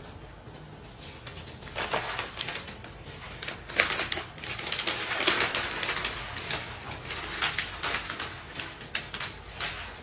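A newspaper rustling and crackling as its sheets are picked up, opened and raised, with quick sharp crinkles that are loudest from about four to six seconds in.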